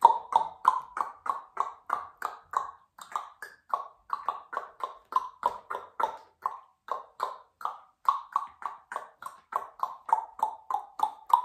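Tongue clicking in imitation of a horse's hoofbeats: a steady run of sharp clicks, about three a second.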